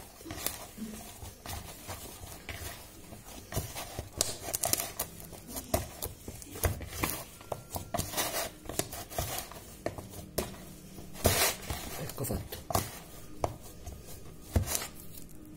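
A hand kneading a soft mashed-potato dough in a plastic bowl: irregular squishing and slapping strokes, with the bowl knocking and rubbing under the hand.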